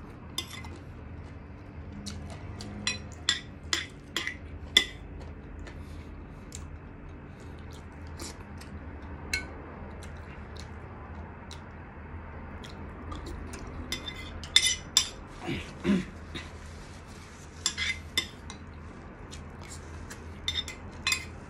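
Metal cutlery clinking against dishware during a meal: scattered sharp clicks in two busy clusters, over a steady low hum.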